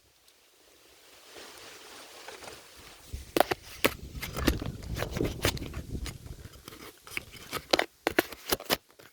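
Crunching and clicking handling noises, a few scattered at first and then a quick cluster near the end, over wind rumbling on the microphone.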